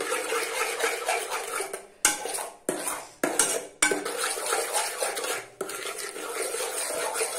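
Spoon stirring and scraping a thick glue-and-baking-soda slime mixture around a metal bowl, with several brief pauses in the stirring.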